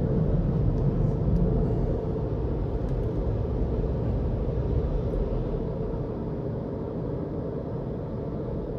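Dryer blowers of a Razor touchless car wash blowing on a car as it drives slowly out of the bay, heard from inside the car's cabin as a steady low rumble. The rumble fades in two steps as the car pulls clear of the dryers.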